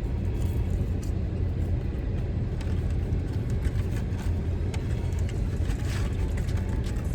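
Steady low rumble of a car engine idling, with a few faint small clicks over it.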